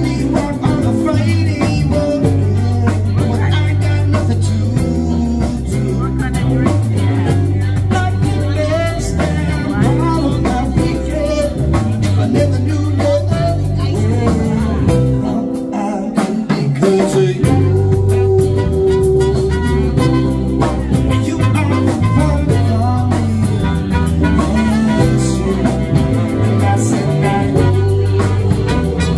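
Live band playing an upbeat ska-and-jazz-flavoured groove: electric bass, drum kit, a strummed ukulele, trumpet and saxophone, with a singing voice. About halfway through the bass and kick drop out for a couple of seconds, then the band comes back in with a long held horn note.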